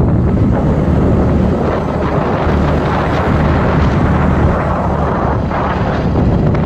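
Wind buffeting the microphone of a moving vehicle, over a steady low engine and road rumble.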